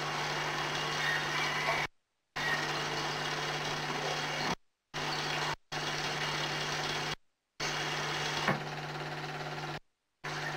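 A steady mechanical whir with a constant low hum, cutting out abruptly to silence for a fraction of a second five times. A single click near the end, after which the whir runs a little quieter.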